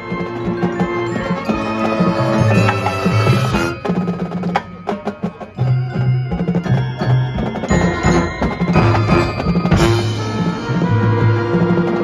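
Marching band playing a field show: a low bass line under ringing mallet percussion from the front ensemble. Near the middle it thins for a couple of seconds to scattered percussion hits, then the full sound returns, with a loud accent about ten seconds in.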